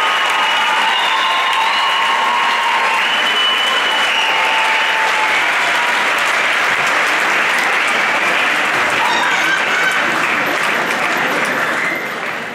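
Audience applauding loudly, with voices calling out over the clapping. The applause begins to die down near the end.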